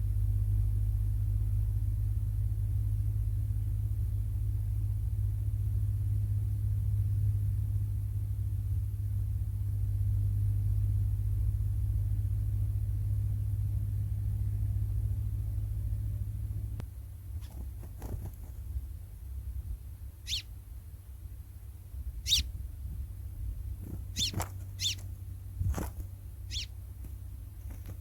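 A low steady rumble that cuts off suddenly about two-thirds of the way through. Then come a handful of short, sharp bird calls spaced a second or two apart.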